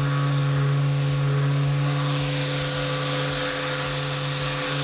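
Random orbital sander running steadily against a wooden tabletop, a constant motor hum over the rough hiss of the pad on the wood, sanding the glued joints smooth.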